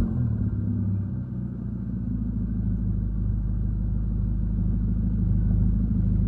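2013 Hyundai Genesis Coupe 2.0T's turbocharged four-cylinder, breathing through a catless, muffler-deleted exhaust, idling with a steady low rumble, settling in the first second after the revs drop.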